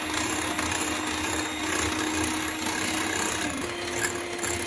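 Electric hand mixer running, its beaters whipping chilled whipping cream in a glass bowl: a steady motor hum over the whir of the beaters. About three and a half seconds in the hum steps up a little in pitch as the mixer is switched from low to medium speed.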